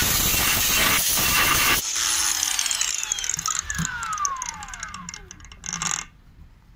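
Makita DGA504Z cordless angle grinder with a cut-off disc cutting 3 mm steel plate, a loud hissing grind. About two seconds in the cut stops and the disc spins down with a falling whine that fades over a few seconds, followed by a short knock as the grinder is laid on the plate.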